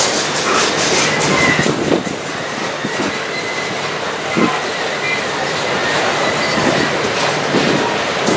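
Freight train cars rolling past, wheels clicking steadily over the rail joints, with a thin wheel squeal for a few seconds in the middle.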